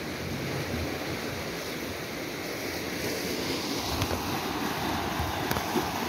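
Canal water rushing and churning around the concrete piers of a syphon inlet, where the canal drops to pass under a river; a steady wash of water noise, with wind buffeting the microphone.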